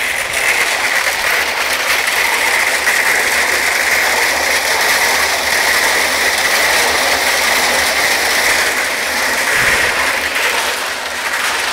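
Gravel and water tumbling and rattling steadily inside the rotating steel drum of a tractor PTO-driven three-point concrete mixer, with the tractor's engine running underneath as a low hum.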